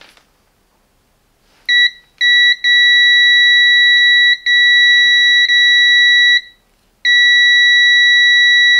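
Continuity buzzer of a Parkside PDAM 300 A1 digital multimeter sounding a steady high-pitched beep as the test probes bridge the two ends of a cable. The tone starts about two seconds in, drops out briefly several times and once for about half a second as probe contact breaks, then holds steady near the end. The tone means the cable conducts end to end.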